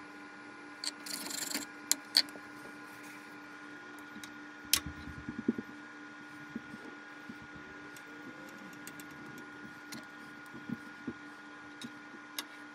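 Quiet kitchen handling sounds over a steady hum: a brief rustle about a second in, a few sharp clicks and light taps, and a soft knock near five seconds, from cheese-stuffed dough balls being set on a ceramic plate and a spoon being dipped in a saucepan of cheese sauce.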